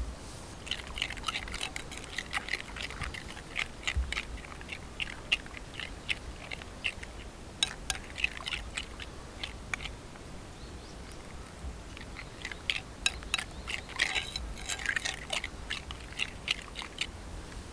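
Metal spoon stirring thick frying batter in a ceramic bowl, a run of quick small clicks, taps and wet scrapes against the bowl's sides. It comes in spells, with a lull about midway.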